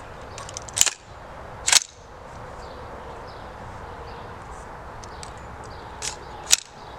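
Four sharp gunshot cracks at a shooting range, in two pairs: two about a second apart near the start, then two about half a second apart near the end.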